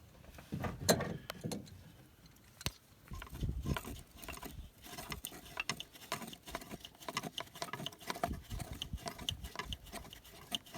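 Irregular clicks, knocks and scraping of hands and tools working on a stuck part in a van's engine bay, with a sharp knock about three seconds in.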